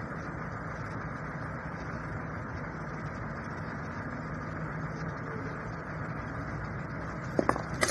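A vehicle engine running steadily, an even low rumble with a faint hum, with a couple of light clicks near the end.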